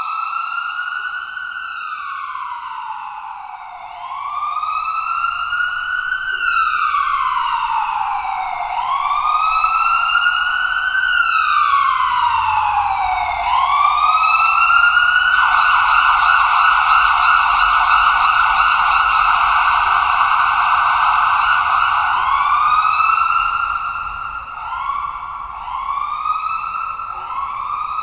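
Ambulance's electronic siren sounding: slow wail cycles, each a quick rise and a longer fall in pitch. About halfway through it switches to a rapid warble. Near the end it changes to shorter rising sweeps about once a second.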